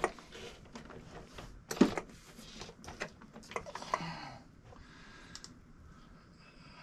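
Handling noises from a large 1/5-scale RC buggy being moved about on a work surface: scattered clicks and knocks, the loudest a single knock about two seconds in, with a few more around three to four seconds in before it goes quieter.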